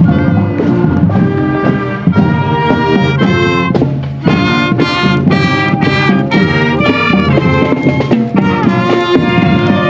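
Marching band playing, with trumpets and trombones carrying the tune over drums.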